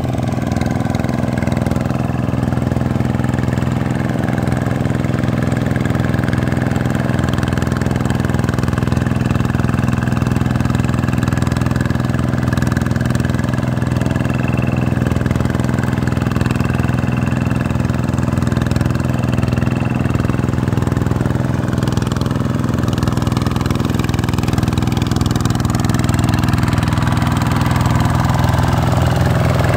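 Vikyno RV125-2 hand tractor's single-cylinder diesel engine running steadily under load as the tractor churns through flooded paddy mud.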